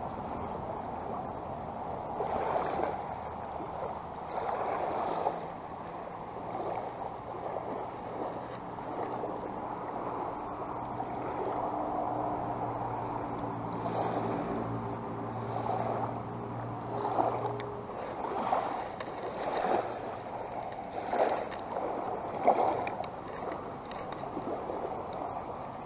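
Small waves lapping at the shoreline and wind on the microphone, swelling and fading every second or two, with a low steady hum from about nine to eighteen seconds in.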